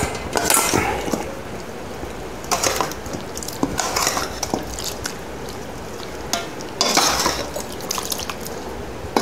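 A metal spoon stirring and scraping in a steel pot, mixing dry ground pickle masala into wet salted mango pieces and brine, in irregular strokes with louder spells about three, four and seven seconds in.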